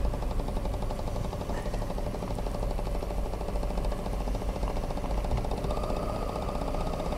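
Model twin-cylinder marine steam engine running steadily with a fast, even beat while its feed pump works, feeding water into the boiler. A steady higher tone joins in about six seconds in.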